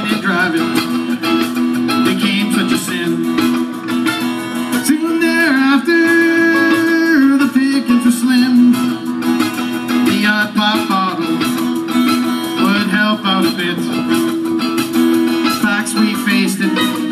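A small acoustic string band playing a song live: strummed acoustic guitar and picked banjo with other stringed instruments, a wavering melody line held over them and one long held note around the middle.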